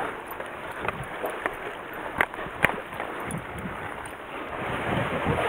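Steady wash of wind and sea water around concrete breakwater tetrapods, with two sharp clicks a little over two seconds in.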